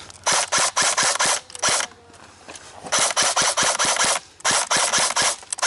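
Airsoft gun firing on full auto in three long bursts of rapid shots, about eight a second, with short pauses between them.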